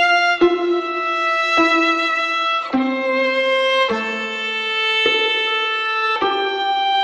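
Background music: a slow violin melody of long held notes, changing pitch every second or so.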